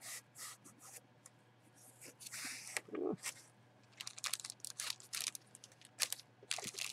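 A cardboard box being opened, with a few short scrapes and rubs, then from about four seconds in the clear plastic bag around a jersey crinkling in a gloved hand in quick crackles.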